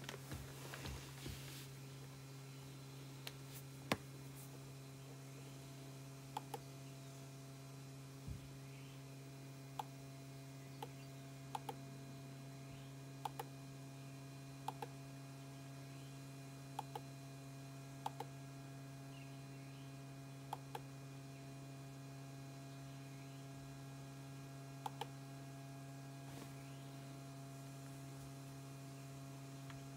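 Laptop touchpad and keyboard clicks over a steady low electrical hum. The clicks come every second or two for most of the stretch, many in quick pairs like double-clicks, and one louder click comes about four seconds in.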